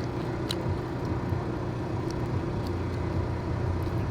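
Steady low hum of a running vehicle engine, with a faint click about half a second in.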